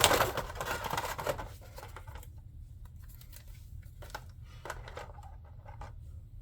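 Cardboard model box being opened by hand: scraping and rustling of the cardboard for about a second and a half, then quieter handling with a few faint clicks and taps.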